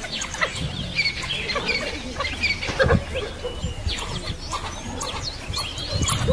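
African wild dogs giving many short, high-pitched, bird-like chirping and twittering calls in quick succession.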